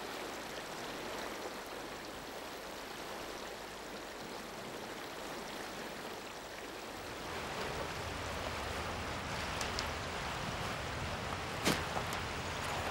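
Steady rushing outdoor noise with no distinct tones, like running water or wind through the trees. It grows fuller and deeper about seven seconds in, and a single sharp click or snap sounds near the end.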